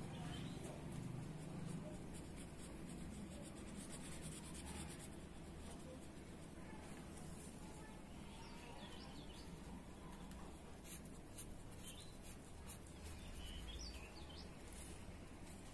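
Quiet background with soft scratchy rustling, like paper or a pen being handled, and a few faint bird chirps in the second half.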